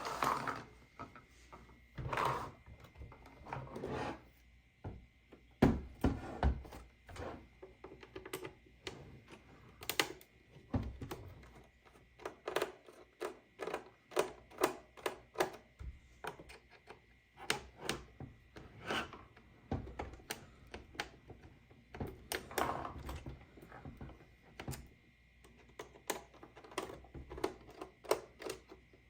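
Hands handling a toy claw crane machine and its packaging: irregular plastic clicks, taps and knocks with some rustling.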